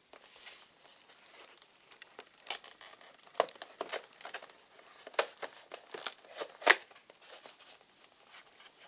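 A cardboard model-aircraft box and its packaging being opened by hand: irregular short clicks and rustles as flaps and inner packing are handled, with the sharpest snap about two-thirds of the way through.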